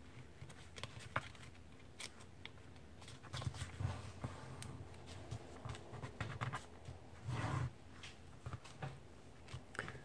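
A sheet of paper being folded and creased by hand on a tabletop: soft rustles, crinkles and light taps of fingers pressing the folds, with a louder rustle a little past seven seconds in.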